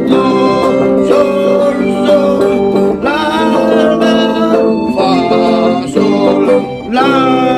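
Chamamé music with guitar, played as a steady run of chords with a melody line over them.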